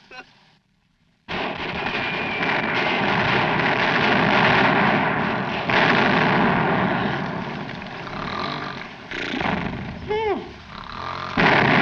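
Film battle sound effects: a dense din of gunfire and explosions that starts suddenly about a second in, with a few sharper blasts later and two short rising-and-falling pitched sounds near the end.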